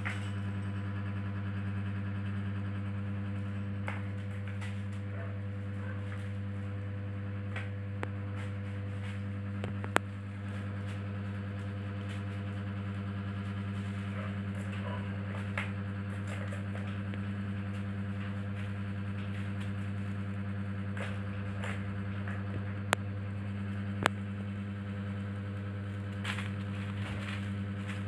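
A steady low mechanical hum, with a few sharp clicks and light crinkling as a kitten plays on a plastic sheet around a plastic ball-track toy.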